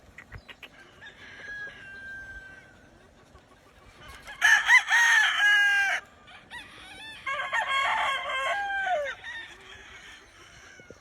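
Gamefowl roosters crowing: a faint crow, then two loud crows about four and seven seconds in.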